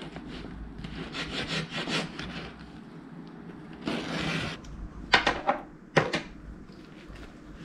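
A knife saws back and forth through a freshly baked dish with repeated rasping strokes, then makes a longer scraping stroke. Two sharp knocks follow about five and six seconds in.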